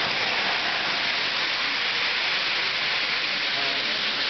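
Steady rushing, hiss-like running noise of electric O-gauge model trains rolling on three-rail track.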